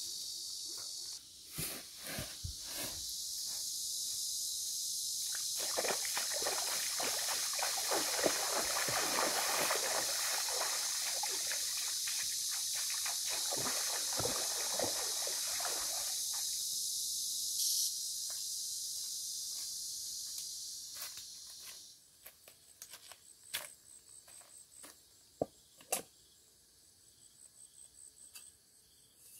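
Water sloshing and trickling for about ten seconds in the middle, over a steady high hiss and scattered clicks and knocks. Once the hiss stops, crickets chirp faintly.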